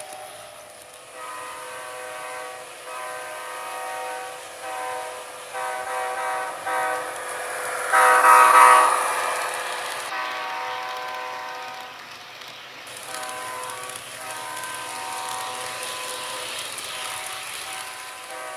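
HO scale model diesel locomotive's sound-equipped horn sounding a multi-note chord in a series of blasts, several long and a few short, loudest about eight seconds in. Faint running noise of the model train rolling by lies underneath.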